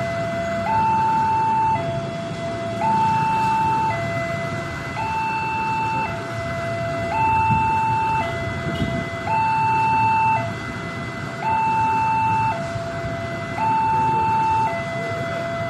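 Electronic two-tone level-crossing warning alarm, alternating steadily between a lower and a higher tone about once a second, warning of an approaching train, over a steady low background noise.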